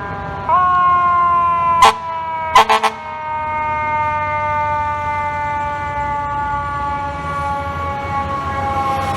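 Fire truck siren coming on about half a second in: one high tone that slowly sinks in pitch. Near two seconds in it is cut through by short, very loud air-horn blasts, one and then a quick triple, the loudest sounds here.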